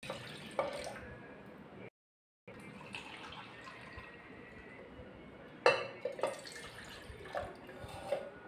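Sweet lime juice trickling and dripping from a small plastic hand juicer's jar into a cup and a steel pot. The sound drops out for about half a second near two seconds in; a little past halfway there is one sharp knock of the containers, then a few lighter knocks.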